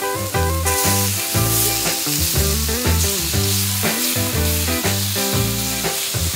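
Marinated pork and chicken sizzling on a hot flat steel griddle plate as pieces are laid down and moved with tongs. Background music with a steady bass line plays over it.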